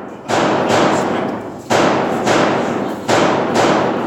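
Pistol shots fired in pairs: three double-taps, six loud shots in all, each with a long ringing tail.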